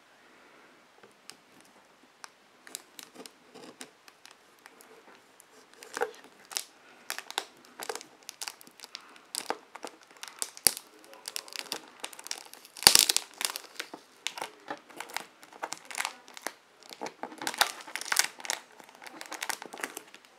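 Clear plastic wrap on a cardboard box crinkling and crackling as fingers peel it back. The crackles are sparse at first, get busier about six seconds in, and are loudest around the middle.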